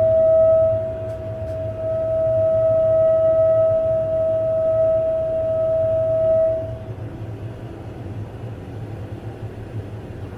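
Household water pipes or water heater giving off a loud, steady humming tone over a low rumble, the tone stopping about seven seconds in while the rumble carries on. It is an unexplained noise that the plumbing makes several times a day.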